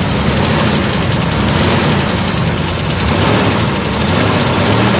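Toy army missile truck's electronic sound effect playing: a loud, continuous engine-like rumble with a rapid rattle and a hiss.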